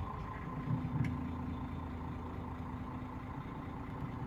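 Steady low hum of a motor vehicle's engine running, with a couple of faint clicks.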